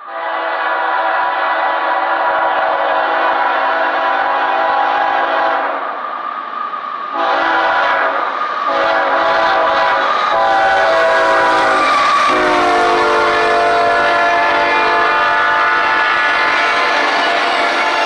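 Lead GE ES44AH locomotive's air horn sounding long blasts, with a short break about six seconds in, over the rumble of the passing freight train. About twelve seconds in the horn's chord drops in pitch as the locomotive passes by, and the sound of the engines and wheels on rail swells underneath.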